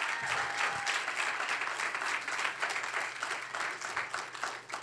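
Church congregation applauding, the clapping dying down near the end.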